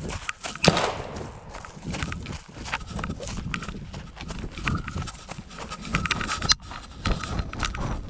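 Footsteps and rustling through dry scrub: irregular clicks and knocks, loudest about a second in, with a faint high tone that comes and goes.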